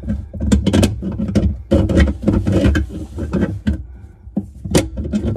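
Metal wrench clicking, knocking and scraping on a faucet mounting nut under a sink as it is worked back and forth to loosen the nut.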